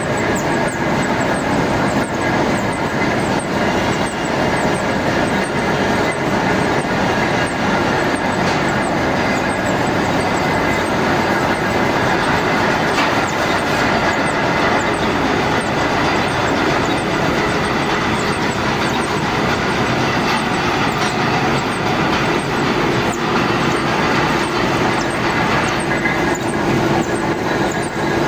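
Metal lathe running steadily while machining a shaft, a continuous mechanical din with faint steady tones; a lower tone comes in near the end.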